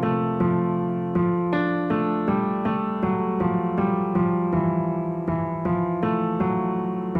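Background piano music: a melody of single notes over held bass notes.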